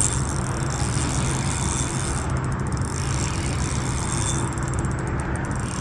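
Boat motor running steadily, a low even drone with rushing hiss over it.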